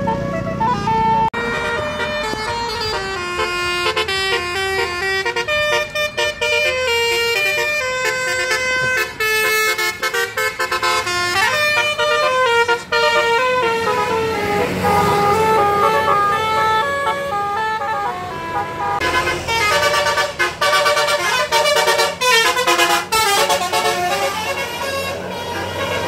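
Multi-tone 'telolet' bus horns playing quick melodies of stepped notes, one tune after another, over vehicle noise.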